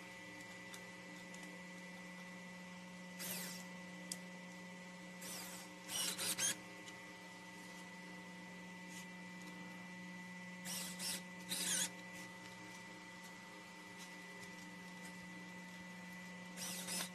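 Homemade mini electric screwdriver, a small 9–12 V geared DC motor, whirring in several short bursts of under a second as it drives small screws into a wooden block, over a faint steady hum.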